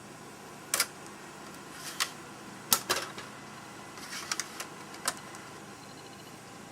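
Irregular sharp clicks from someone operating the laptop's keys and buttons, about eight over several seconds, some in quick pairs and a short cluster, over a faint steady hiss.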